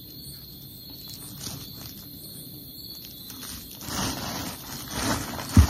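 Faint handling clicks, then a plastic bag rustling from about four seconds in as a hand rummages through it, with one sharp low thump near the end.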